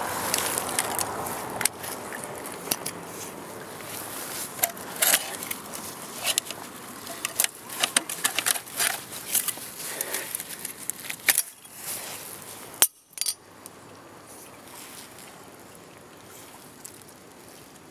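Irregular metallic clinks and rattles from a mud-covered bicycle pulled out of a canal as it shifts on the stone quay. They stop suddenly about two-thirds of the way through, leaving a faint steady hiss.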